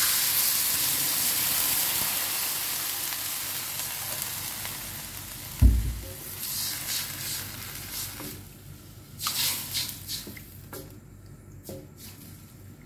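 Water poured into a hot metal wok of stir-fried midin fern sizzles loudly, the hiss dying away over about five seconds. A single low thump comes about halfway through, then a wooden spatula stirs and scrapes through the greens in short strokes.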